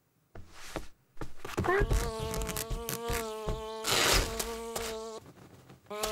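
Cartoon housefly buzzing in a steady, even hum that briefly stops near the end. Over it come scratching clicks and the rip of cat claws tearing down a curtain, loudest about four seconds in.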